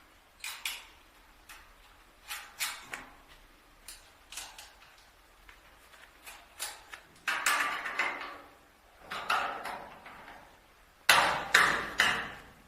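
Irregular knocks and clatter of hard objects being handled, in short clusters, with the loudest bursts about seven and eleven seconds in.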